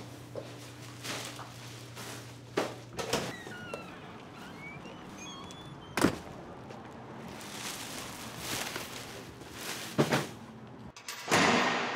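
Scattered dull thuds and knocks, the sharpest about six and ten seconds in, with a few faint short chirps a few seconds in and a swelling rush of noise just before the end.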